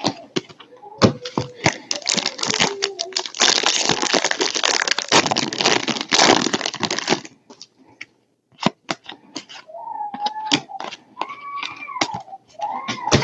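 A foil trading-card pack wrapper being torn open and crinkled, with a dense stretch of tearing and crumpling a few seconds in, and cards clicking and snapping as they are handled. Near the end there are a few short voice-like sounds.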